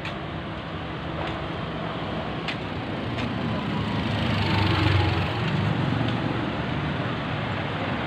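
City street traffic noise, with a motor vehicle's engine hum growing louder as it passes, loudest about five seconds in, then easing off.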